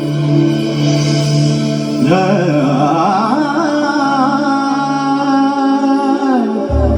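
Recorded dance soundtrack music: sustained instrumental notes, with a wavering vocal melody that comes in about two seconds in, and a deep held tone near the end.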